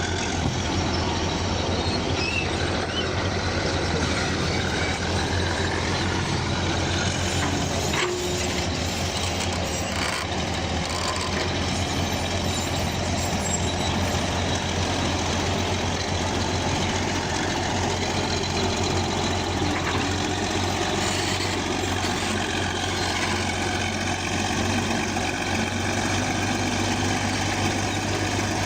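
A bulldozer's diesel engine runs steadily with a constant low drone. There are two faint knocks about eight and ten seconds in.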